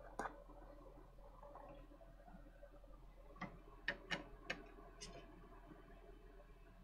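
A few faint clicks and light taps from small tools and parts being handled on a workbench, one near the start and a quick cluster a little past halfway, over a low steady hum.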